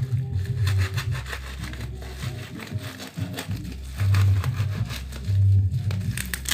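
Packaging being handled and opened, with crackling and crinkling clicks, over background music with a heavy pulsing bass.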